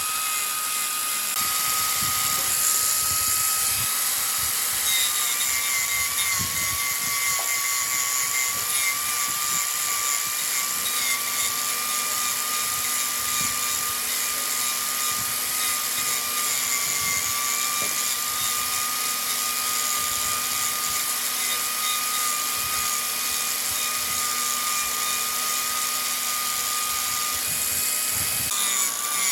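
Electric power tool running in woodturning, most likely the wood lathe: a steady high-pitched whine over a bright hiss, the pitch wavering slightly and shifting near the start and near the end.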